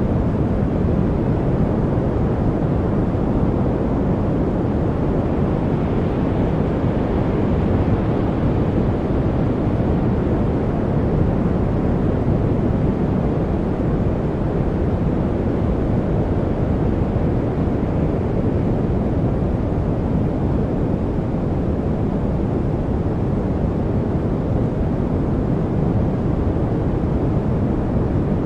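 A steady, unchanging noise track, a deep even rush weighted toward the low end rather than a bright hiss.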